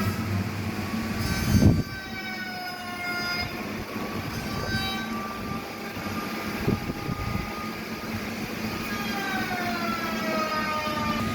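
Large sawmill band saw cutting through a giant log: the blade whines in several high tones that slowly slide down in pitch over a steady low motor hum. A single knock sounds about a second and a half in.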